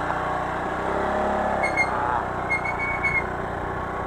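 Motor scooter's small engine running steadily while it is ridden, with wind and road noise on the microphone. A few short high chirps sound about the middle.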